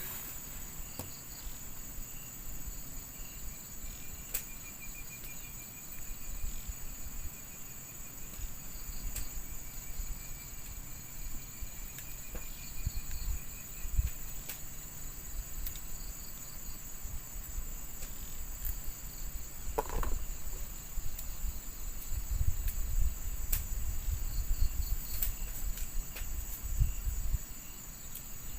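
Insects chirring steadily in one high-pitched, pulsing band. A fainter trill runs for several seconds near the start, and a low rumbling noise comes in near the end.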